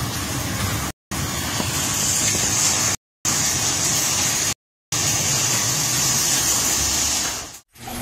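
Commercial trolley-type garage door opener running while the sectional door rolls along its overhead tracks: a steady mechanical noise with hiss and a low hum, broken by three brief dropouts.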